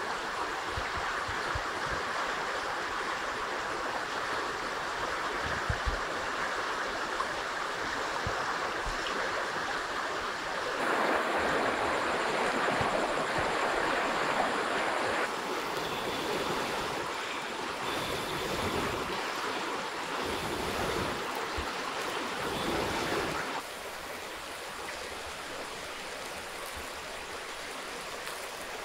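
A river flowing steadily: an even rush of water that gets louder about eleven seconds in and drops noticeably a little before the end.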